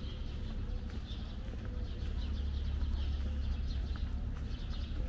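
Small birds chirping repeatedly over a steady low rumble, with footsteps on pavement.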